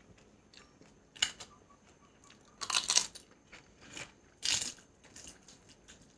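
Crisp papad being bitten and chewed: a handful of sharp crunches, the loudest about three seconds in, with quiet chewing between them.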